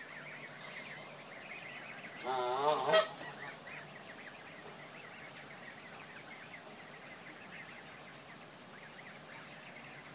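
Canada goose giving one loud, wavering honk about two seconds in, over the steady high peeping of a brood of goslings.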